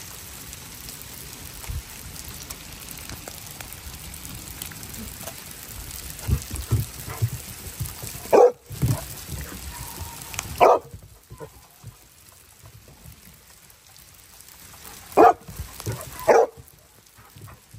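Small hail falling on a wooden deck, a steady hiss that quietens about eleven seconds in. A dog barks four times: twice around eight to eleven seconds in and twice more near the end.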